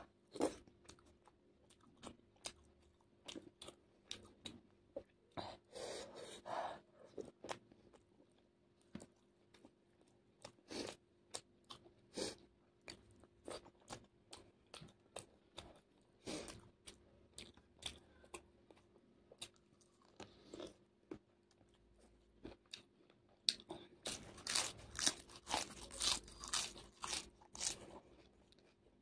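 A person chewing and biting crunchy food close to the microphone: an irregular run of sharp crunches and mouth sounds, getting denser and louder near the end.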